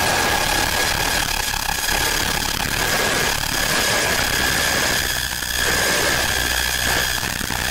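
Synthesized noise drone: a dense, even hiss with a steady high whistling tone and a low hum beneath it, holding without a break.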